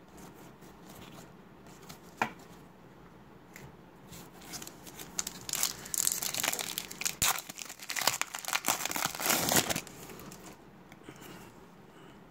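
Trading card pack wrapper being torn open and crinkled by hand, a dense crackle that swells over several seconds in the middle. A single sharp click comes about two seconds in.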